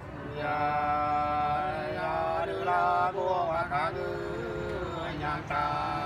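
A man singing sli, the Nùng people's unaccompanied folk song, in long held notes with slow slides in pitch, starting about half a second in.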